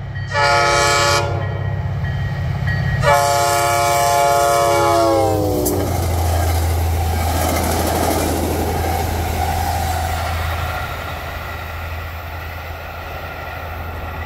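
Diesel locomotive horn: a short blast, then a longer blast whose pitch drops at the end as the locomotive passes. The engines and wheels then run on past, fading slowly.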